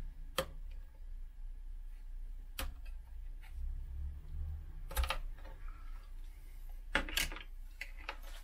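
Scattered small clicks and taps of a screwdriver and fingers on the plastic interior of an IBM ThinkPad 755c as the CMOS battery plug is pried loose, about five clicks with the sharpest near the end, over a low steady hum.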